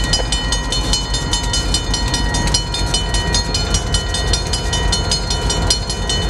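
A grade-crossing bell rings in rapid, even strokes over the low steady drone of two EMD GP38-2 diesel locomotives, which have non-turbocharged 16-cylinder EMD 645 engines, moving slowly through the crossing.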